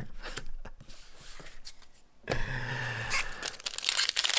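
Light clicks of trading cards being handled, then near the end the foil wrapper of a Pokémon booster pack crinkling and tearing as it is gripped and opened by hand.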